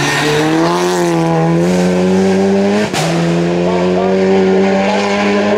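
Audi RS3 TCR race car's turbocharged 2.0-litre four-cylinder engine under full throttle accelerating out of a hairpin. The pitch rises steadily, breaks off briefly about three seconds in with a sharp crack at an upshift, then rises again.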